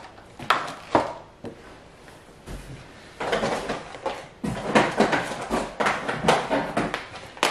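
Plastic packs of jig heads knocked down onto a wooden table twice, then a run of rustling and crinkling plastic packaging as items are pulled out of a cardboard box.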